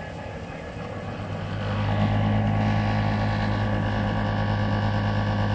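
Silent Partner Smart tennis ball machine's motors spinning up over about two seconds after a preset is selected on the remote, then running with a steady hum.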